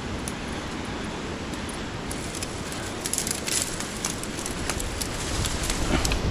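Strong wind buffeting the microphone with a steady rumble, with scattered small crackles and ticks over it.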